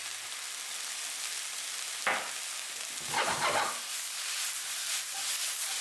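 Sliced onions and spring onions sizzling in hot oil in a frying pan. There is a sharp knock about two seconds in. About a second later the pan is shaken and the vegetables toss and rattle in it, and the sizzle then runs a little louder.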